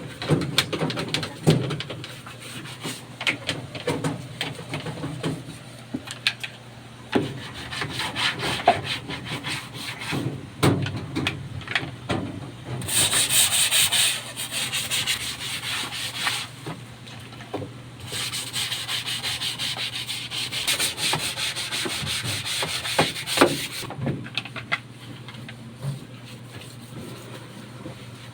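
Scrubbing and rubbing on a washing machine part being cleaned, in quick strokes that come in bouts, the longest about two-thirds of the way through. A few sharp knocks fall in between.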